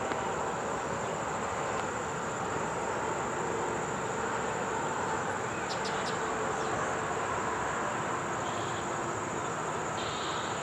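Insects buzzing in one steady high note over the low, even rumble of an approaching freight train led by GE diesel-electric locomotives.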